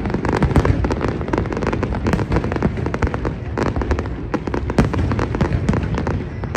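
Fireworks display going at full pace: a continuous barrage of bangs and crackles, several reports a second, with no let-up.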